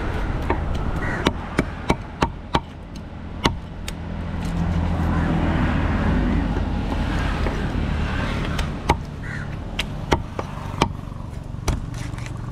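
A large knife chopping through a tilapia onto a wooden block: a dozen or so sharp knocks, a quick irregular run of them in the first few seconds and a few more spaced out near the end. A low rumble swells and fades in the middle.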